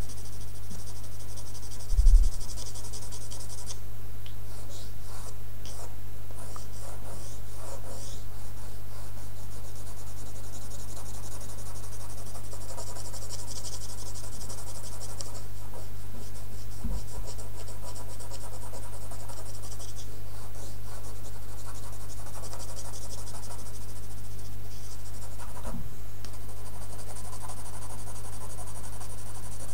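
Coloured pencil scratching on drawing paper in runs of quick short shading strokes, with brief pauses between runs, over a steady low hum.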